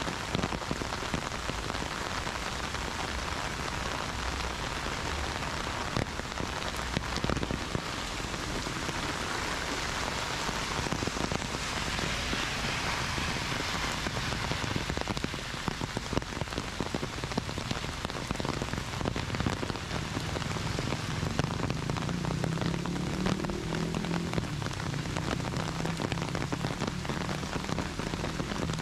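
Steady rain falling and pattering on surfaces, with many close drops ticking through it. A low hum joins about two-thirds of the way in.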